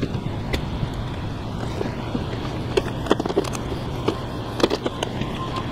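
Scattered clicks and knocks of a motorcycle windshield and its metal mounting brackets being handled and pushed into place against the handlebars, the sharpest around three and five seconds in, over a steady low background rumble.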